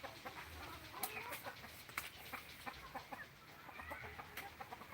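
Birds calling: many short chirps and clucking notes, with scattered sharp clicks among them.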